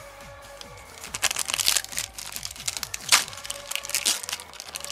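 Foil Pokémon booster pack wrapper crinkling as it is handled and opened, starting about a second in, with a sharp crackle about three seconds in.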